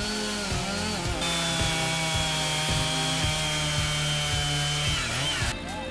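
Chainsaw running at high revs, cutting into a large tree trunk with a steady, high engine note that drops away shortly before the end. Background music with a regular beat plays underneath.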